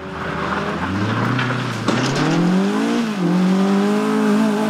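Mk1 Volkswagen Golf rally car's engine accelerating hard, its note climbing, dipping once at an upshift about three seconds in, then rising again and holding high.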